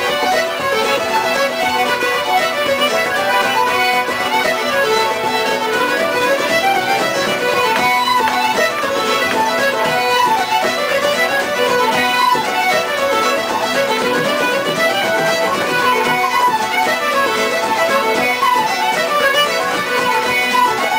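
Irish traditional session music: fiddle and flute playing a fast dance tune together in unison.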